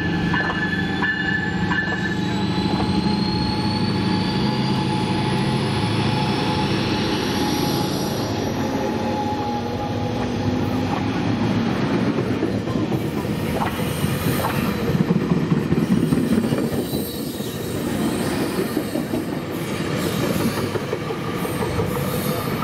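A passenger train running close by, with a continuous rumble of wheels on rail. A whine climbs steadily in pitch over the first eight seconds or so as the train picks up speed.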